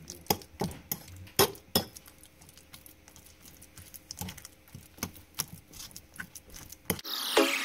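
Metal fork clinking and scraping against the side of a bowl as it mashes and stirs avocado, in irregular sharp clinks. Music starts near the end.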